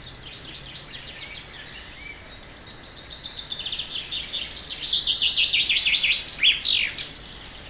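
Nightingale singing: a long run of rapid repeated notes that grows louder from about halfway, ending in a few quick falling whistles.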